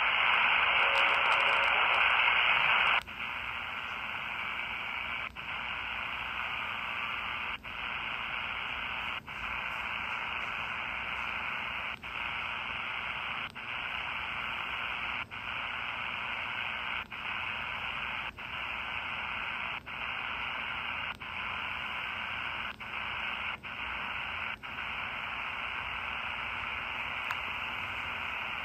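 Model 4732 miniature radio on a shortwave band giving only hiss and static from its speaker, with no station coming through: poor reception. The hiss is louder for the first three seconds, then drops and is cut by brief dropouts about every one and a half seconds.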